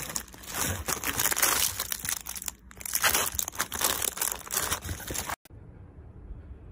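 Clear plastic wrapping on packaged vacuum filters crinkling as they are handled and shuffled in a box, a dense run of crackling that cuts off suddenly about five seconds in, leaving a faint low background.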